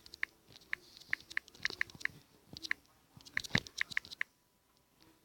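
Quick light clicks in short runs, several a second, with one heavier tap about three and a half seconds in; the clicks stop a little after four seconds in.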